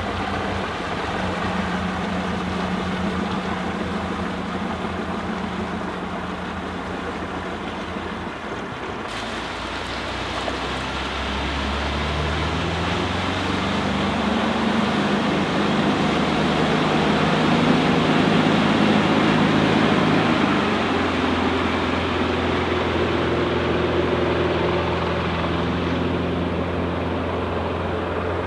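Regal 2665's Yanmar 240 hp turbo diesel stern drive running under way. Its pitch shifts about a dozen seconds in, and it grows louder a little past the middle before easing off.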